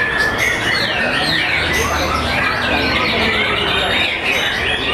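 White-rumped shamas singing in competition: many loud whistled phrases, trills and rising and falling glides from several birds overlapping without a break.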